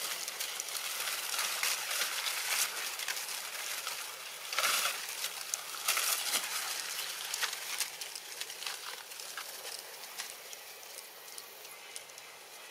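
Leaves and undergrowth rustling with many small crackles and clicks, with two louder bursts of rustling near the middle.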